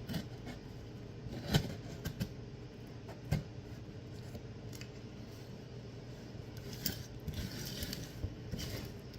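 Cardboard shipping box being cut open with a knife and handled: a few sharp knocks and taps, the loudest about a second and a half in, then a short stretch of scraping and rustling near the end.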